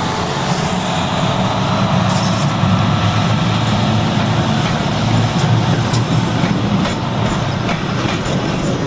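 CP 1200 class diesel locomotive, with its SACM MGO V12 engine, running steadily as it pulls its train away past, followed by its passenger coaches rolling by. Light clicking from the wheels comes in near the end.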